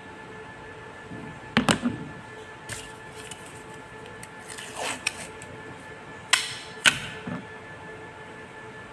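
Handling noises while a small plastic umbrella is taped onto a phone tripod: a cluster of sharp clicks and knocks about a second and a half in, a brief scratchy rasp of tape pulled off its roll midway, and two more sharp knocks later on. A steady hum runs underneath.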